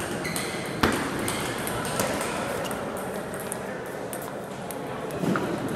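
Table tennis ball clicking off paddles and the table during a rally, with one sharp, loud hit about a second in and another at about two seconds. Fainter ball clicks from neighbouring tables sound throughout.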